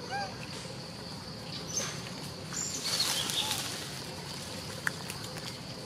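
Forest-floor ambience: a steady high whine, a few short chirping calls near the start, and a brief burst of rustling about three seconds in. A single sharp click comes near the end.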